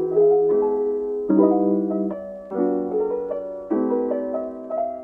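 Background piano music: slow, gentle chords, a new one every second or so.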